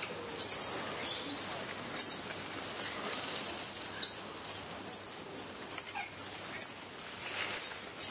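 Squirrel monkeys calling from the trees: a steady series of high, thin peeps, a little more than one a second, some drawn out and falling in pitch.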